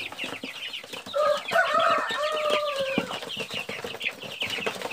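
A flock of chicks and half-grown young chickens cheeping constantly, with quick, high-pitched peeps. Between about one and three seconds in, one bird gives a louder, lower, drawn-out call.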